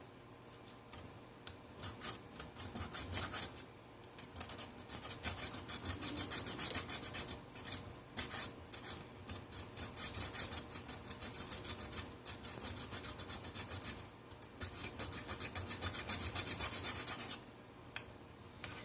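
A knife blade scraping old adhesive off a Nokia Lumia 520's frame: quick, repeated scraping strokes in three runs, with short pauses between them.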